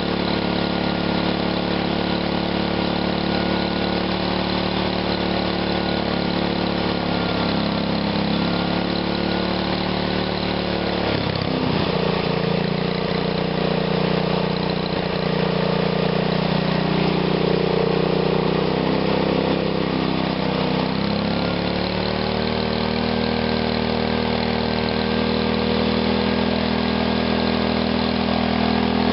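Small engine running on a GEET fuel-processor reactor, steady. About a third of the way in its speed drops and holds there, then picks back up a few seconds before the end as the throttle is worked.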